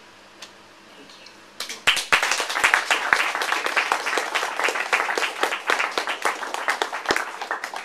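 A short hush, then an audience breaks into applause about a second and a half in: dense clapping that carries on.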